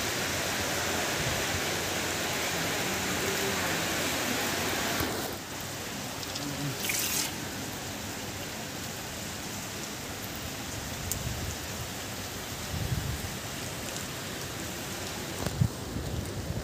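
Steady rain falling on wet paving and streets, a continuous hiss that drops to a lighter, quieter level about five seconds in. A few low bumps near the end.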